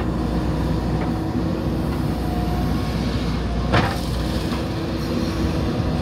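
JCB 3DX backhoe loader's diesel engine running steadily as the backhoe digs a trench, with a single sharp knock a little under four seconds in.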